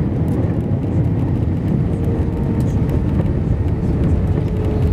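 Airbus A319 cabin noise during the landing rollout: a loud, steady rumble of the engines and wheels on the runway as the airliner slows. A faint steady tone joins about two seconds in.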